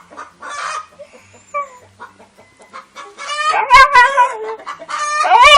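Siberian husky vocalising in wavering, yodel-like howls with a loud burst about three seconds in, then a long rising-then-falling call near the end.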